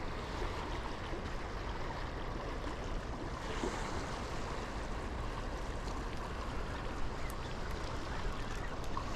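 Steady rush of river water flowing along the bank.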